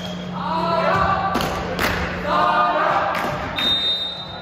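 Voices shouting in a large echoing hall, two long calls about a second each, over sharp thuds of a ball bouncing on a hard floor.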